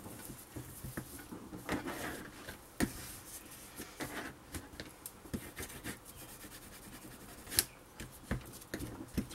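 Plastic bone folder rubbing and scraping along paper, pressing it into the gaps between chipboard panels to crease the folds. There are scattered small clicks, the sharpest one late on.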